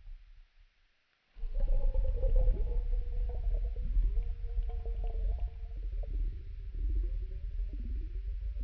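Human stomach rumbling, played back slowed down: a long, deep gurgling rumble starting about a second in, with drawn-out tones that waver and dip in pitch several times.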